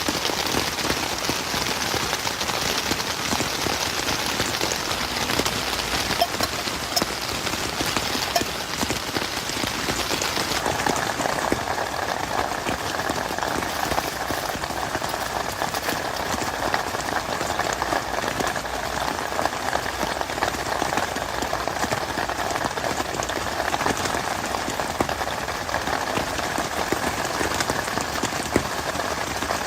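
Heavy rain falling steadily, dense drops hitting a surface close by. A little after ten seconds in, the sound turns fuller in the middle range and less hissy at the top.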